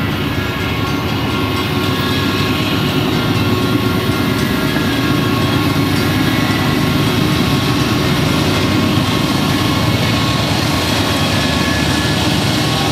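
Union Pacific diesel locomotive leading a coal train on approach, its engine running with a steady, heavy rumble that grows slightly louder as it nears.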